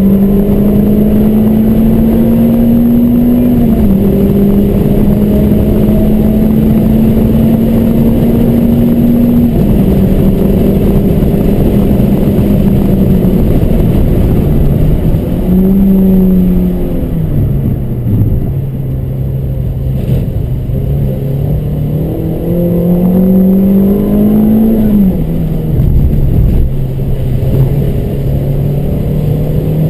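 Car engine at speed on a race track, its pitch holding and slowly climbing, then dropping abruptly at each gear change, several times. The revs fall lower and the sound eases somewhat past the middle, then climb and drop again near the end.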